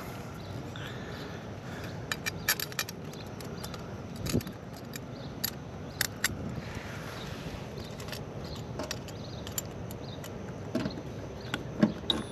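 Scattered small metallic clicks and rattles from a cordless drill/driver and parts being handled in an AC condenser's electrical panel, over a steady background hiss; the drill's motor is not heard running.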